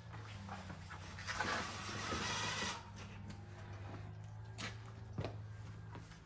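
Cordless drill-driver running in short spells as it drives small 3/4-inch screws into an aluminium screen track frame, with a louder spell of a second and a half and a few sharp clicks near the end.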